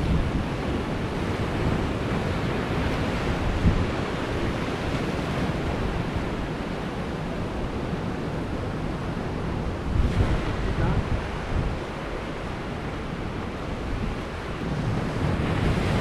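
Sea waves breaking and washing over shoreline rocks, with wind buffeting the microphone. The surf swells louder about 4 seconds and 10 seconds in.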